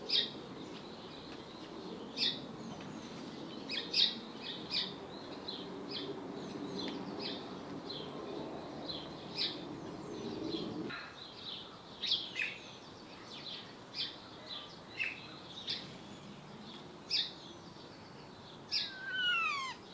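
Garden birds chirping and singing, with many short high calls scattered throughout and one call that sweeps down in pitch near the end. A faint low background hum stops abruptly about halfway through.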